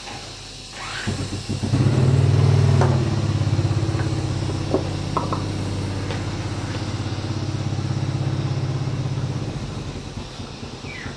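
Diesel tractor engine starting about a second in, running loudest for the first second or so, then settling to a steady run before cutting off near the end.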